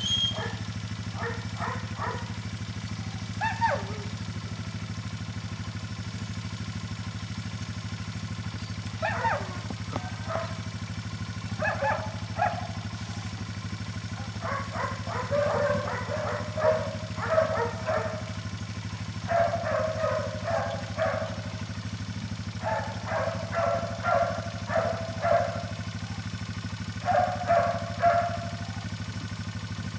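ATV engine idling steadily while a Belgian Malinois puppy cries out in short high yelps and whines, a few at first and in frequent clusters through the second half.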